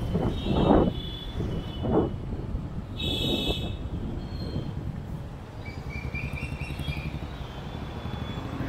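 Street traffic around a moving car: a steady low road rumble with a few louder swells of passing vehicles in the first two seconds. Brief high-pitched tones about three seconds in and again around six to seven seconds.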